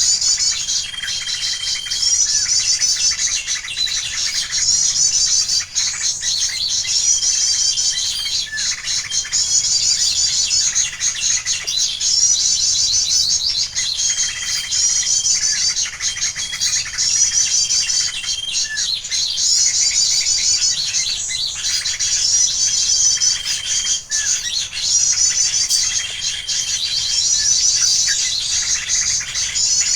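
Bird song played as a trapping lure: the same rapid, high twittering phrase repeats over and over at an even pace, every two to three seconds, with a short steady whistle between some of the phrases.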